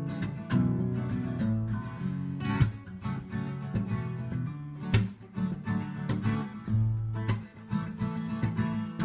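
Instrumental passage of a song: acoustic guitar strumming chords.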